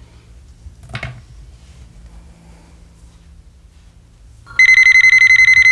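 Phone ringing with a fast electronic trill, starting about four and a half seconds in and loud. Before it, a short rustle about a second in.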